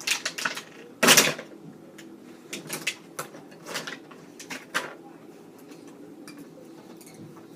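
Cardboard and plastic toy packaging being handled: a series of clicks, rattles and rustles, loudest about a second in, then quieter near the end.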